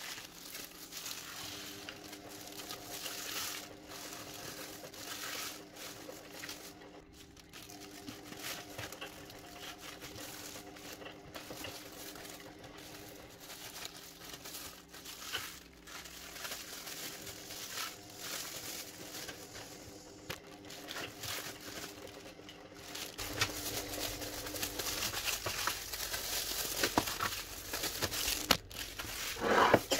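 Plastic zip-lock freezer bags and thin disposable plastic gloves crinkling and rustling as chopped spring onions and lime slices are packed into the bags by hand, louder from about two-thirds of the way in.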